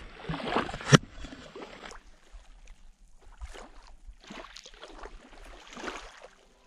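Small waves lapping and washing on the shore of Pangong Lake, coming in soft swells every second or so, like surf on a beach. A sharp knock about a second in.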